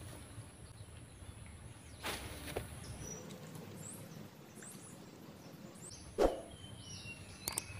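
Quiet outdoor ambience with a steady high-pitched insect drone. Two sharp clicks or knocks stand out, a faint one about two seconds in and a louder one about six seconds in.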